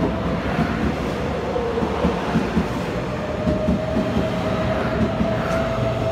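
TRA EMU800 electric commuter train rolling into a station, with a steady high whine over a low rumble and irregular wheel knocks on the rail joints.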